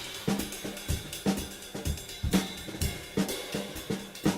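Background music: a drum kit playing a steady beat of bass drum and snare with hi-hat and cymbals, about two beats a second.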